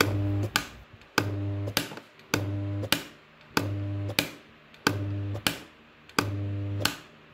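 Solenoid coil snapping its plunger forward and letting it back, switched on and off six times at an even pace about every second and a quarter. Each stroke is a click, a steady low buzz of about half a second while the coil is powered, and a second click as it releases.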